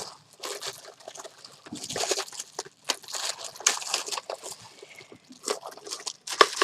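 Plastic packaging crinkling and rustling as it is handled and pulled off, in a steady run of irregular crackles.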